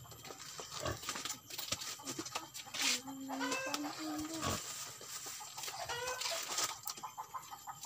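Chickens clucking: short runs of rising calls about three seconds in and again near six seconds, over scattered knocks and rustles.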